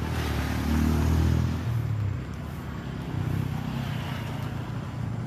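Road traffic: a motor vehicle's engine and tyre noise, loudest about a second in as it goes by, then easing off.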